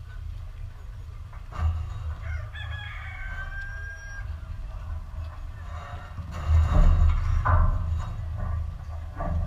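A rooster crowing, one long call starting a little under two seconds in. Under it runs a steady low rumble, which swells louder about two-thirds of the way through.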